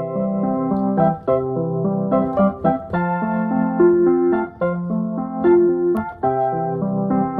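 Background music played on a keyboard: sustained piano-like chords with a simple melody on top, the notes changing about every second.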